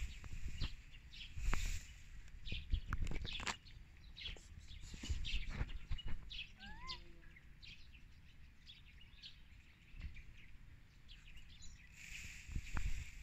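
Birds chirping outdoors over a low rumble, with frequent rustling and knocks close to the microphone.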